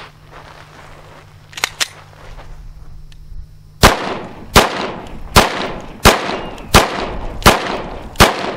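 Glock 19 Gen 4 9mm pistol firing Winchester USA Forged steel-cased ammunition. Seven evenly paced shots, about three every two seconds, start about four seconds in, each with a short echo. The pistol keeps cycling with no failure to eject.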